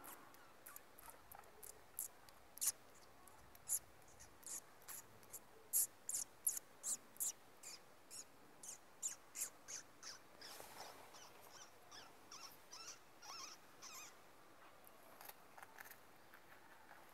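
Rabbits making a faint, irregular series of short, sharp, high-pitched ticks, about one or two a second, busiest in the middle.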